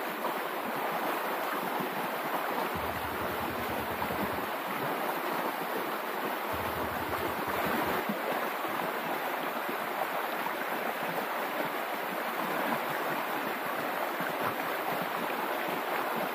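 Stream water rushing steadily over rocks, a constant hiss of flowing water.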